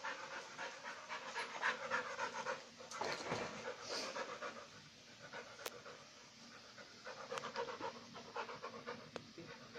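Rottweiler panting in quick, rhythmic breaths, softer for a stretch in the middle.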